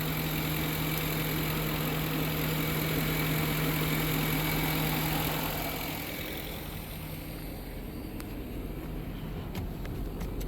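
Car engine running steadily with a low, even hum. About six seconds in it becomes duller and a little quieter, and a few light clicks come near the end.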